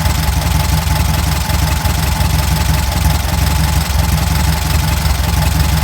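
Air-cooled VW Beetle 1300 flat-four engine idling steadily with an even low rumble.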